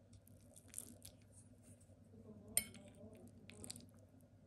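Faint taps and scrapes of a metal fork against a ceramic plate as it cuts through a slice of lasagna, with one sharper clink about two and a half seconds in.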